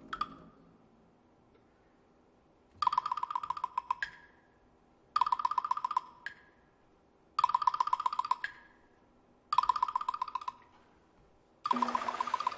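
Rapid two-note roll on a rack of small egg-shaped pitched percussion, played in four short phrases about two seconds apart. Each phrase ends with a single stroke on a small gong that rings on briefly. Near the end a louder, hissing passage with ringing tones sets in.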